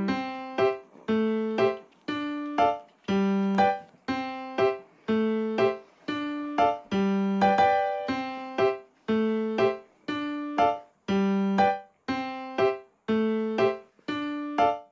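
Background music: a light piano-style keyboard melody, about two notes a second, each note struck and fading away.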